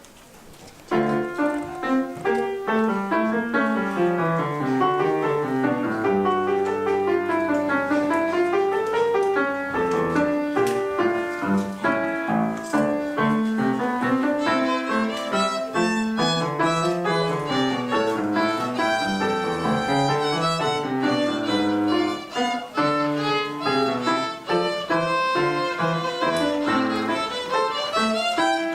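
Violin with piano accompaniment playing the first movement of a concerto for two violins, the piano taking the orchestra's part; the music begins about a second in and runs on in lines of notes that climb and fall.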